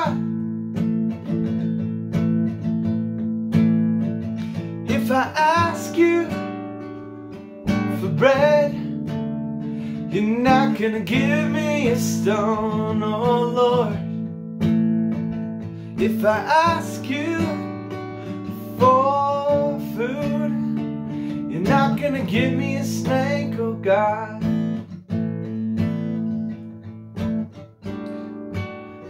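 Acoustic guitar strummed steadily while a man sings over it in drawn-out phrases. The singing stops in the last few seconds, leaving the guitar alone.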